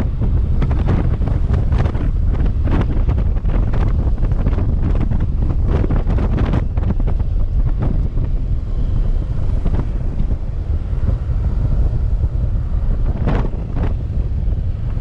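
Strong wind buffeting the microphone: a loud, low rumble with rapid gusty crackles, easing somewhat after about eight seconds.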